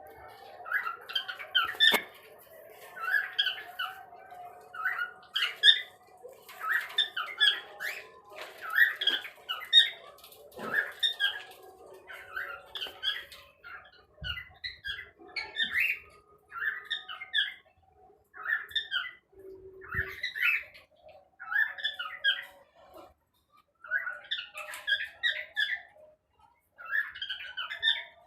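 A flock of cockatiels calling: repeated short chirps and squawks in busy clusters, with brief lulls past the middle and again near the end.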